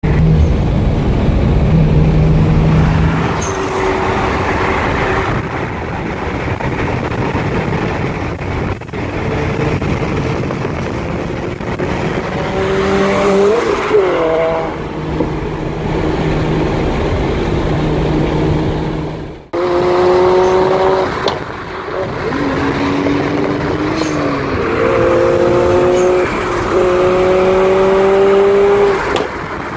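Toyota GT86's flat-four engine accelerating repeatedly, its pitch rising through each pull, heard from a car driving alongside over steady road and wind noise. A few faint sharp pops, typical of exhaust backfires, sound between pulls.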